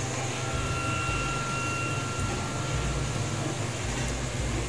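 Steady mechanical hum and hiss of room background noise, with a faint thin whine running through the first few seconds.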